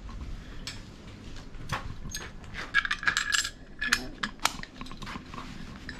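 Scattered small metal clicks and clinks from a key lockbox being handled and opened.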